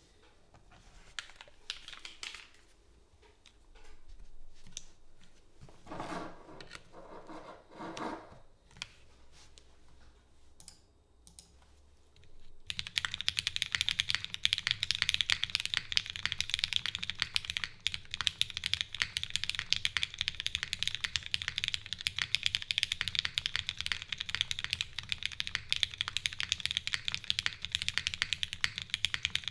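Custom mechanical keyboard with lubed Cherry MX Black linear switches, GMK keycaps and an O-ring-mounted aluminium plate: a few scattered clicks and handling sounds, then from about thirteen seconds in, fast continuous typing.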